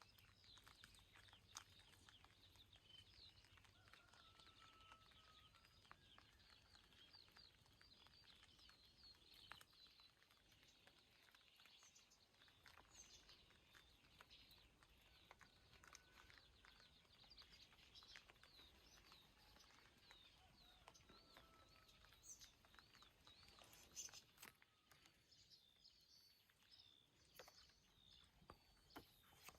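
Faint birdsong: many quick chirps, with a few short held whistled notes, over scattered sharp ticks of falling raindrops.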